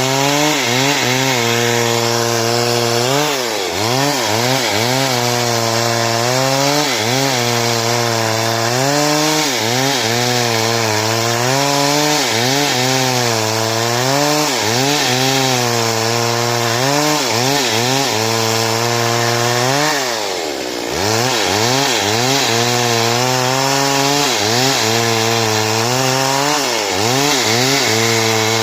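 Stihl two-stroke chainsaw sawing wood into boards, its engine pitch dipping under load and recovering about once a second. About two-thirds of the way through it dips further, nearly bogging, then picks back up.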